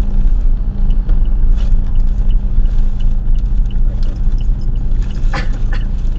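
Inside a moving car: steady low engine and road rumble, with light regular ticking about three times a second and a single sharper knock about five seconds in.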